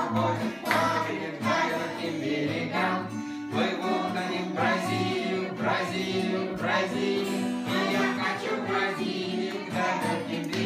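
Acoustic guitar strummed in a steady rhythm, about two strokes a second, with voices singing along.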